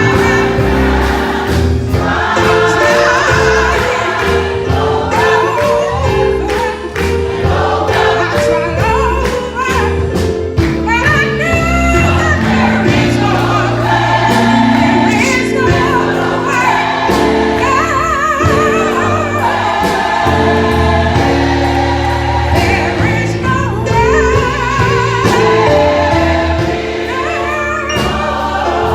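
Gospel choir singing in parts, backed by instruments with a steady bass line and regular percussive hits.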